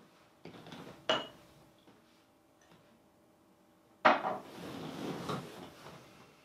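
A drinking glass handled and set down on a table: a sharp clink with a short ring about a second in, then a louder knock about four seconds in, followed by a second or so of rustling.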